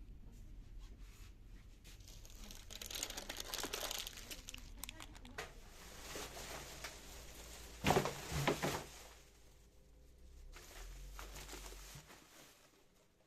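Crinkling and rustling of something being handled, with a louder cluster of two or three sharp rustles about eight seconds in.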